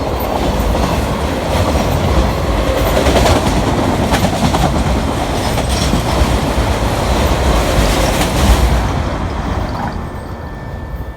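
Freight train of autorack cars rolling past at close range: a steady rumble with wheels clacking over the rail joints. The noise drops away about nine seconds in as the train moves off.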